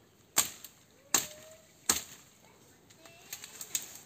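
Machete chopping through plant stalks and vines: three sharp chops about three-quarters of a second apart, then a few lighter cuts near the end.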